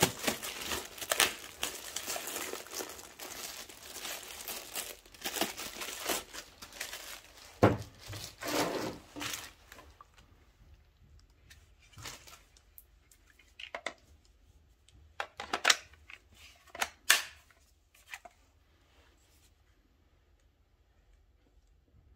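Clear plastic bag crinkling and tearing as it is pulled off a Milwaukee M18 cordless trim router, for about ten seconds. Then a few sharp clicks and knocks as the tool and its battery are handled.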